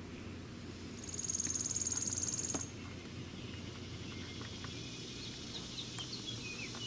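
A high, even insect trill lasting under two seconds, starting about a second in, over a steady low background hum.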